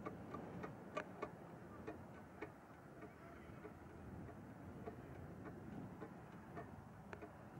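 Scattered sharp clicks and knocks, irregular and closest together in the first couple of seconds, over a steady low outdoor rumble.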